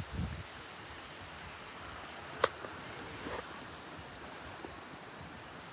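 Strong gusty wind blowing, a steady rushing hiss, with the wind buffeting the microphone briefly at the start. A single sharp click comes about two and a half seconds in.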